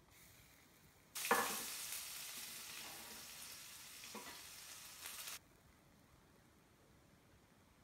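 Chopped onion dropped into hot oil in an aluminium kadai, bursting into a loud sizzle about a second in that slowly dies down, then cuts off abruptly about five seconds later.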